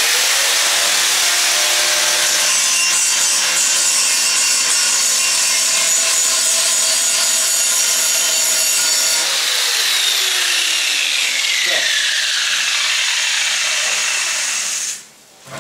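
Angle grinder running against the steel of a gas tank, grinding the metal and throwing sparks. It starts suddenly, runs steadily and loud, and cuts off about a second before the end.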